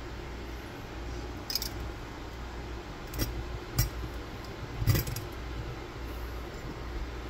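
A few separate light clinks of glass and metal as small oil lamps are handled, their glass chimneys knocking against the metal burners. The loudest clink comes about five seconds in, over a steady low hum.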